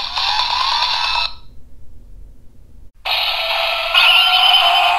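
Onjuuken Suzune toy sword-gun playing its electronic standby music, with rising tones; it cuts off about a second in. After a short lull, a different loud electronic jingle starts about three seconds in.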